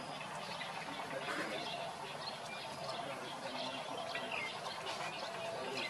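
Small birds chirping in short, scattered calls over a steady outdoor background.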